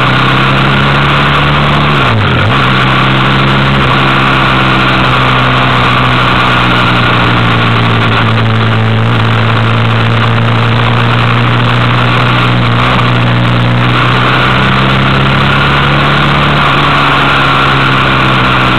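Motorcycle engine running at a steady pace on the move, with a brief drop and recovery in pitch about two seconds in.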